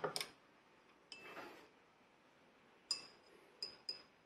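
Faint light clinks of small hard objects being handled. There are two quick clicks at the start, a soft rub about a second in, and three more clinks near the end, each with a short high ring.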